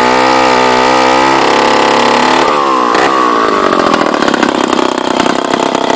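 Vintage Hoffco G-58 two-stroke chainsaw engine running at steady high speed, then the revs drop about two and a half seconds in and it runs on lower and uneven, near idle.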